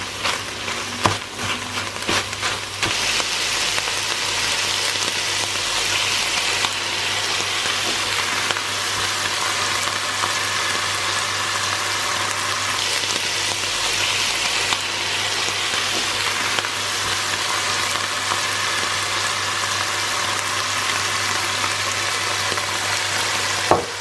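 Ground Italian sausage, diced smoked sausage and onions sizzling in a hot skillet, with a few knocks of a wooden spoon stirring in the first couple of seconds. From about three seconds in the sizzle turns steady and dense.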